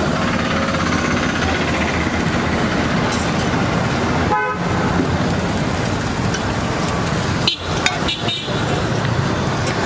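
Steady street traffic noise, with a vehicle horn tooting briefly about four and a half seconds in. Near the end, metal spatulas give a few sharp clinks and scrapes on the flat iron griddle.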